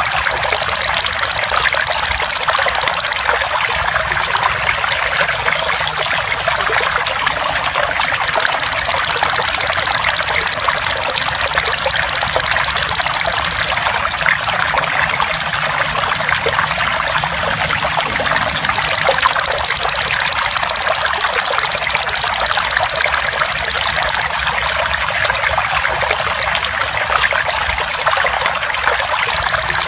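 Belalang emas (golden grasshopper) insect giving a loud, high, continuous buzzing trill in bouts of about five seconds, with pauses of about five seconds between them, over steadily trickling water. This is a looped masteran track for training songbirds.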